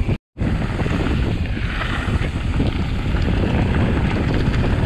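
Heavy wind buffeting the microphone as a steady low rumble with hiss above it. The sound cuts out completely for a moment just after the start.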